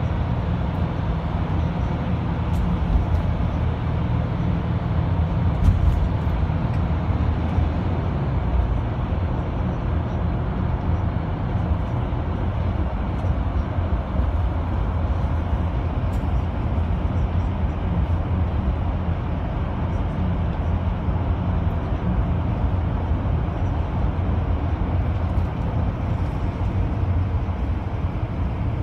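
Inside a moving marshrutka minibus: a steady low rumble of engine and tyre noise, with a couple of brief knocks or rattles about 3 and 6 seconds in.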